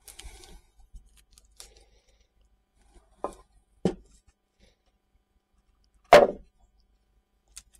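A wooden picture-style frame knocking on a wooden tabletop as it is stood up on its edge and then laid back down flat: two knocks a little past three seconds in and a louder one about six seconds in. A brief rustle at the start from the peeled painter's tape being handled.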